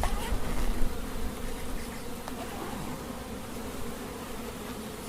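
Honeybees buzzing steadily around an open hive, a dense hum of many bees, with a few faint knocks of the hive boxes about a second in.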